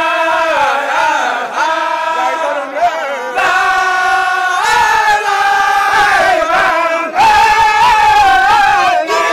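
A group of voices chanting together in long, held melodic lines, a little louder about two-thirds of the way through.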